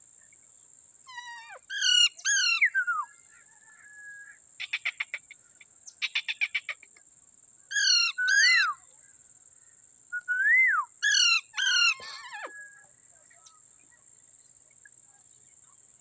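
Indian ringneck parakeets calling: loud, harsh screeches, mostly in pairs, about two seconds in, around eight seconds and again around eleven to twelve seconds, with two short runs of quick chattering notes in between.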